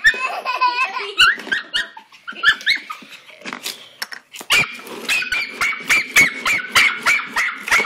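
Small Jack Russell–Pomeranian mix puppy barking: a few scattered short barks at first, then a quick, regular run of high barks, about three a second, from about halfway through.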